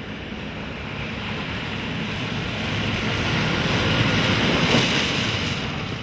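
John Deere 6530 tractor's diesel engine running as it drives past with a front snow plough, the blade pushing snow with a steady rushing hiss. The sound grows louder as the tractor approaches and is loudest about four to five seconds in.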